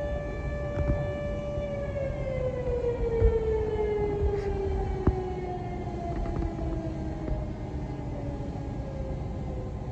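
A siren holding one steady pitch, then winding slowly down in pitch from about two seconds in.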